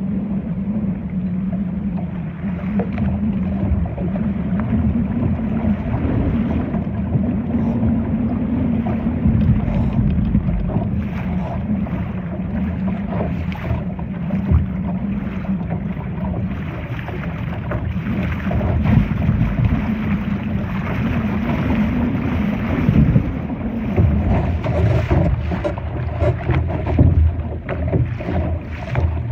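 Wind buffeting the microphone and water rushing and splashing against a Laser sailing dinghy's hull as it sails, with a steady low hum that fades and returns midway and gusts that grow louder near the end.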